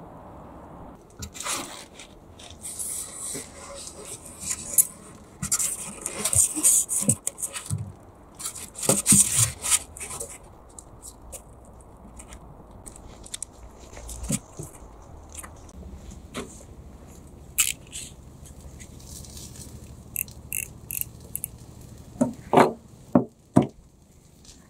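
Bursts of scraping and cutting on foam insulation board, then a quick run of sharp clatters near the end.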